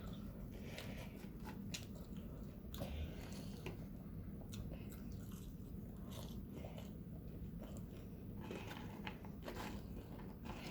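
Close-up chewing and crunching of fried food in the mouth, with many irregular small crunches and mouth clicks.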